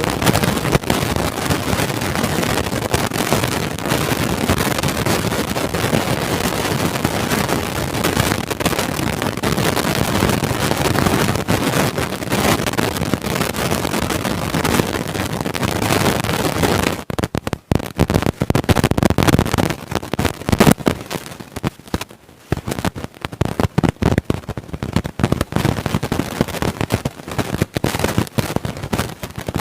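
Loud, dense crackling and popping from a damaged microphone, a goat having bitten it. About halfway through the noise turns patchy, with brief dropouts.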